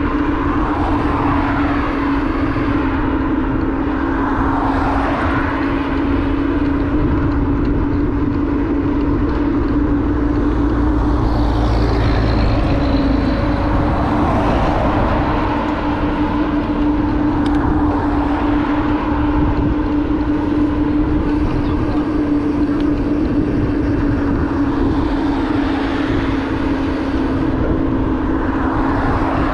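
Motorbike engine running at a steady cruising speed, a constant drone with no change in pitch, with wind rumbling on the microphone.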